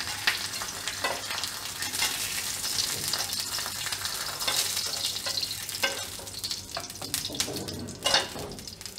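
Split green chillies sizzling in hot oil in a flat frying pan, with a metal spatula scraping the pan and clicking as the chillies are lifted out.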